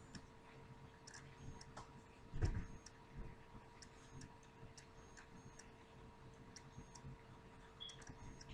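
Faint, regular light ticking, like a clock in a quiet room, over a steady low hum, with one soft knock about two and a half seconds in.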